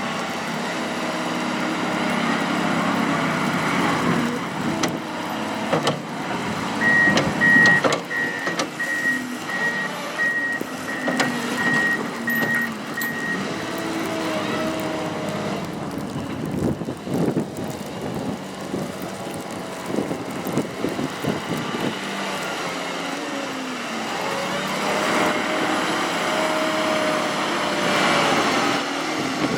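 Heavy-duty snow plow trucks running, their engines rising and falling in pitch as they work, with a reversing alarm beeping steadily about one and a half times a second for several seconds, starting about seven seconds in.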